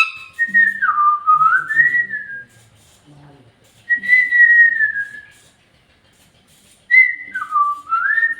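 Pet parrot whistling three clear whistled phrases: two that dip and rise again, and one long, slowly falling note.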